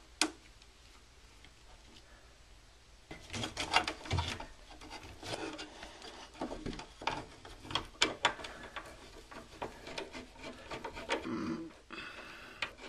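A wired wall outlet being pushed and worked into its electrical box: a single click, then after about three seconds irregular rubbing, scraping and light knocks.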